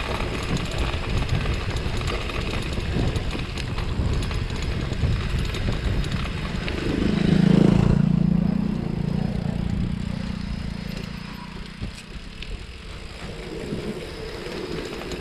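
Bicycle rolling down a steep, rough descent: a jittery rattle and rumble of tyres and frame. About seven seconds in, a loud low hum swells and fades away over a few seconds, and the ride noise becomes quieter near the end with a few knocks.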